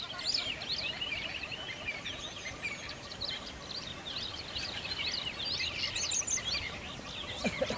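A chorus of many small birds singing and chirping at once, a dense overlapping stream of quick high chirps and trills. Near the end a lower gliding call joins in.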